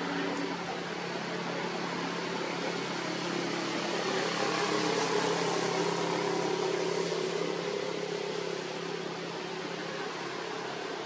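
Steady motor hum with a few held tones over a hiss, growing a little louder about four seconds in and easing off near the end.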